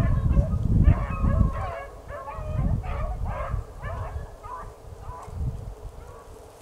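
A pack of rabbit hounds baying in quick, overlapping calls, the sign of dogs running a freshly jumped rabbit's track. The calls grow fainter over the seconds. A low rumble sits on the microphone for the first second and a half.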